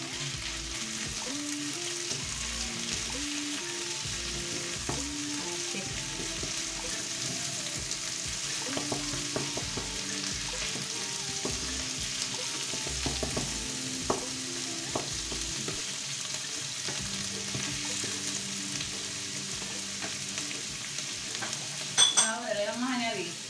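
Bacon, onion and sliced mushrooms sizzling in a frying pan while a wooden spatula stirs and scrapes through them, with occasional knocks of the spatula against the pan.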